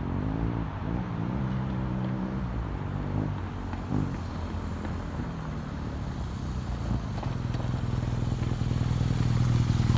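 BMW R nineT Urban G/S's 1170 cc boxer twin riding on dirt, revving up and down several times in the first few seconds. It then settles to a steadier run that grows louder as the bike comes close.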